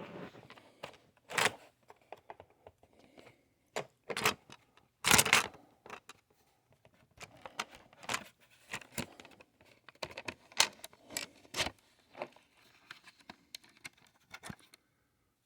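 Irregular clicks, knocks and scrapes of a laptop's bottom cover being pried at and handled while it refuses to come off, with a few louder snaps and a quicker run of small clicks in the second half.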